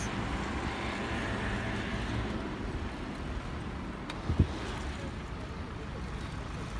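Steady city street traffic noise from passing cars, with a short low thump about four and a half seconds in.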